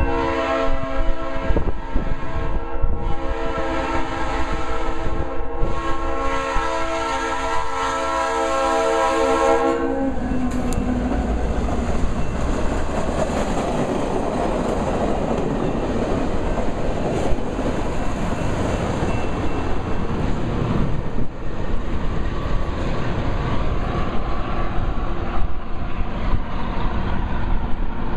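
Iowa Interstate EMD GP38-2 diesel locomotive sounding its Leslie RS3L three-chime air horn in three blasts, the last the longest, as a grade-crossing warning. The horn's pitch drops as the locomotive passes, about ten seconds in. Then the train runs by at speed, its coach wheels clattering over the rails, and the sound thins as it moves away.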